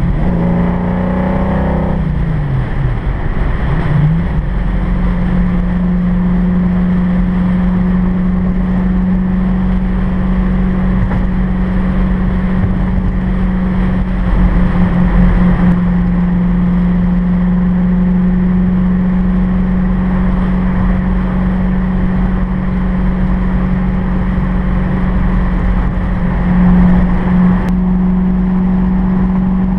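1965 Ford Mustang GT350R's V8 engine running at freeway speed, with road and wind noise. Its pitch rises and falls a few times in the first few seconds, then settles into a steady drone.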